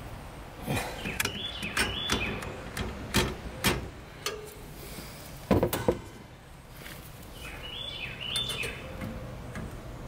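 Sharp metallic clicks and knocks as an access fitting is worked into a copper refrigerant line, the loudest about five and a half seconds in. A bird chirps in two short phrases, about a second in and again near the end.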